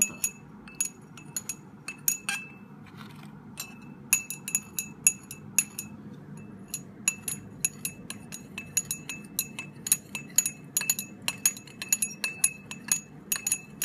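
Glass stirring rod clinking against the inside of a glass beaker as a solution is stirred: quick, irregular clinks, several a second, each with a short bright ring, with a brief pause about three seconds in.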